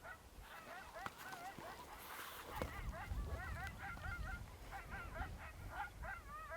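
Coyotes yip-howling: a fast run of short, wavering high yips and rising-and-falling howl notes, over a low rumble of wind on the microphone.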